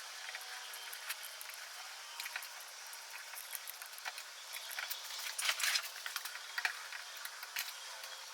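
Hand work on the steel bolt handle of a Remington 700: scattered small clicks and scraping of a metal tool on steel, with a louder rasp about five and a half seconds in.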